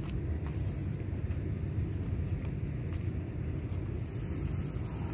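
Steady low rumble of wind buffeting the microphone, with no distinct knocks or clicks.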